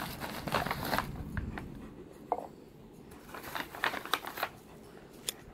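Plastic dog-treat bag crinkling and rustling as it is handled, settling after about a second into a few scattered light clicks and taps.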